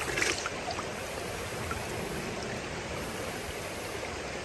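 Shallow stream running over rocks, a steady rush of water, with a short burst of noise right at the start.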